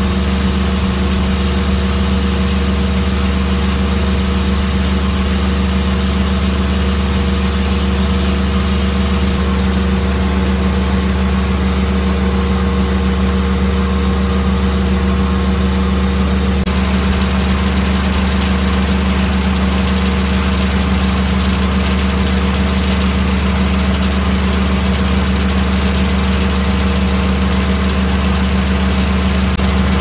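Engine powering a circle sawmill running steadily at idle, a constant low hum with no log being cut.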